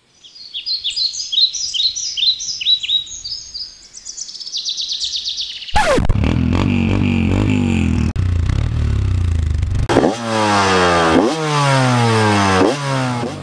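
Songbirds chirping, then about halfway through a motorcycle engine starts up suddenly and runs steadily before being revved up and down several times near the end.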